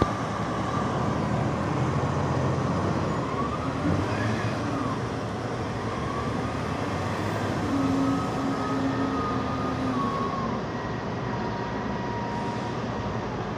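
Heavy diesel engines running: a container forklift working with a container raised on its mast, and a container-carrying semi-truck pulling through. A whining tone glides up and down over the engine noise, and the din eases a little after about ten seconds.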